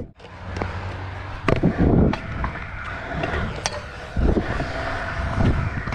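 Stunt scooter's wheels rolling on smooth concrete: a steady low rumble with a hum, broken by several sharp clicks and knocks from the deck and bars.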